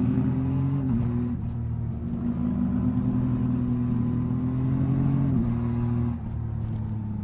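Yamaha MT-09 SP motorcycle's three-cylinder engine running at steady revs under way. The pitch dips briefly about a second in and again after about five seconds, then the engine eases off near the end.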